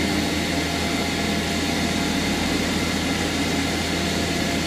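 CNC milling machine spindle at 5000 RPM with an end mill taking a slow finishing pass around a pocket at 500 mm per minute, under spraying coolant. The cutting sound is steady and unchanging throughout.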